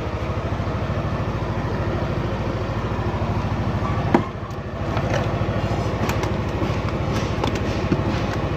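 Yamaha NMAX scooter's single-cylinder engine idling steadily, with a sharp knock about four seconds in.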